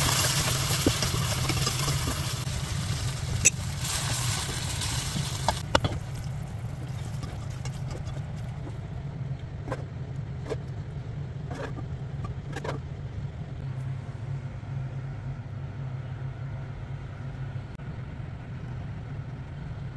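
Mutton and fenugreek curry sizzling in a pot while it is stirred with a spatula; the hiss stops about six seconds in. A steady low mechanical hum runs under it throughout, with a few light clicks.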